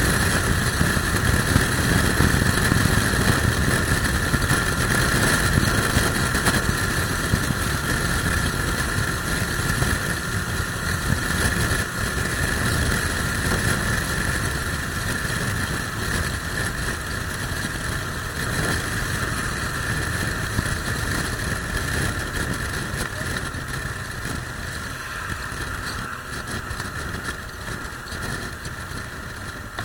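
Motorcycle riding at speed: engine noise mixed with heavy wind rush on the microphone from a strong crosswind. The noise slowly gets quieter over the last third.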